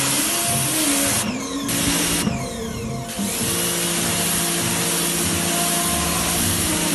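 Pressure washer running, a loud steady spray hiss; the spray noise thins out twice, briefly, between about one and three seconds in.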